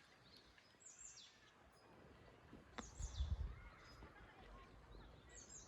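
Faint bird calls: three short, high calls falling in pitch, about two seconds apart, over a quiet outdoor background with a brief low rumble midway.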